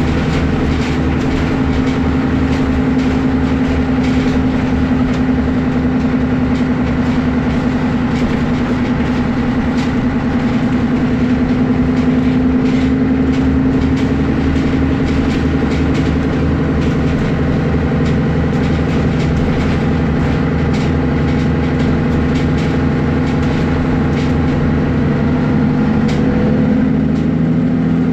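Mercedes-Benz O530G Citaro articulated bus (Hess-built) driving along, its engine and drivetrain running steadily under way. The engine note rises slightly and eases off again, and shifts near the end.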